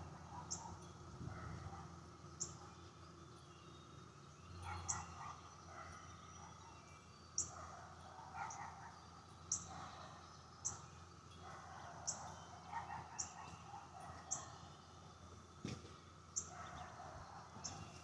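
Outdoor ambience: short, sharp high chirps repeating every second or two, like a bird's call notes, with fainter animal sounds in the background.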